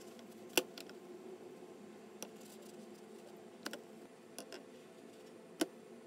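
Pancakes being flipped in a nonstick frying pan: a handful of light, sharp clicks and taps of the spatula against the pan over a steady low hum. The two loudest clicks come about half a second in and near the end.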